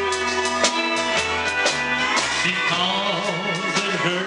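Live country band playing with a steady drum beat: electric guitar over upright bass and drums.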